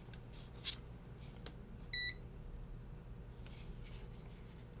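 One short electronic beep from a UNI-T UT204+ clamp meter as a button is pressed, about two seconds in, switching it over to measure DC current. A few faint handling clicks come before and after it.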